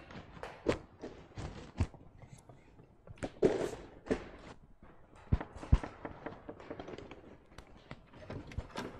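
Footsteps and scattered knocks and thuds as a stand and robot props are carried about and set down on the floor, with a brief scraping rustle about three and a half seconds in and two sharp thuds a little after five seconds.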